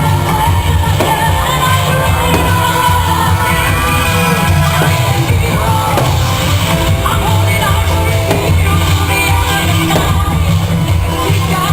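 Loud music with singing over a heavy, steady bass.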